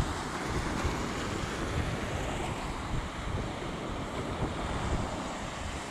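Wind buffeting a GoPro's microphone: a steady rushing noise with uneven low rumbles and no distinct events.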